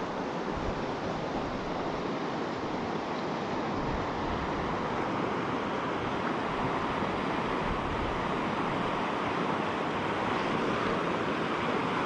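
Steady rushing of a fast, shallow mountain stream running over rocks.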